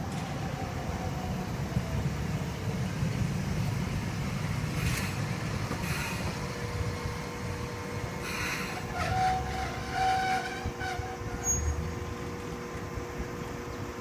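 Toei Arakawa Line streetcar rolling past with a low rumble and rattles from its wheels on the track, then braking to a stand with a brief squeal about nine seconds in. A steady hum from the tram runs through the second half.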